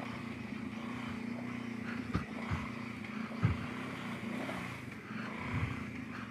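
Kawasaki Brute Force 750 ATV's V-twin engine running steadily on a steep rocky uphill trail, with a few sharp knocks midway as it goes over rocks.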